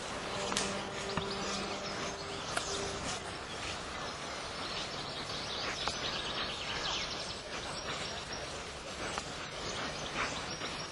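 Steady outdoor background noise with scattered light clicks and a brief low hum during the first few seconds.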